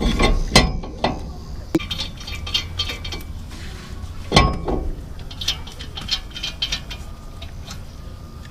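Metal brake parts clinking and knocking as a brake rotor is fitted back onto a truck's wheel hub, with one loud ringing knock about halfway through and runs of quick metallic ticks.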